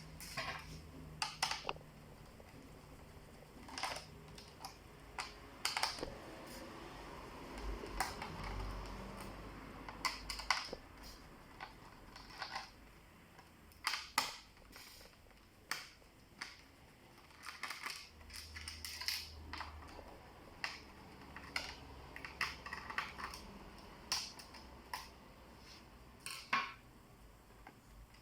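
Irregular clicks, taps and light clatter of a plastic laptop case and small parts being handled and worked apart, a few sharp snaps among softer taps.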